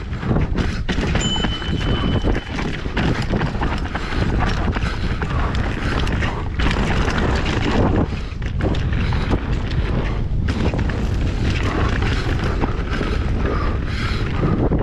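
Mountain bike descending a rough trail at speed, with wind and ride noise on the camera microphone, a heavy steady rumble, and frequent knocks and rattles as the bike runs over rocks and roots. A brief high tone sounds about a second in.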